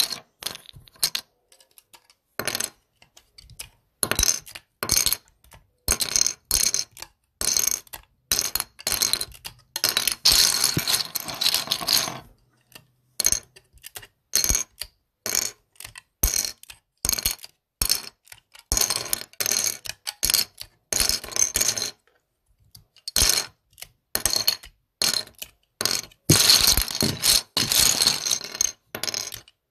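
Plastic LEGO bricks clicking and clattering against each other in irregular bursts with short silent gaps, with longer stretches of rattling about ten seconds in and near the end.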